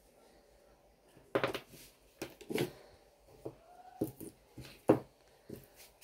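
Wires, crocodile clips and small circuit boards being moved around on a workbench: a scattered run of light clicks, taps and rustles, the sharpest knock just before five seconds in.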